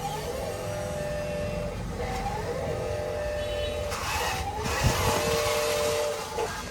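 Small electric motors and gearboxes of RC construction trucks whining, the pitch gliding up as they speed up, over a low rumble, with a single knock about five seconds in.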